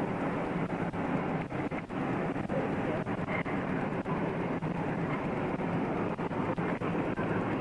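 Steady low engine rumble, with frequent short clicks and rustles over it.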